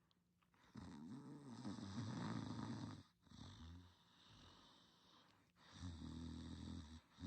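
Snoring in sleep: a long snore from about a second in, lasting about two seconds with a short follow-on, then a second snore near the end.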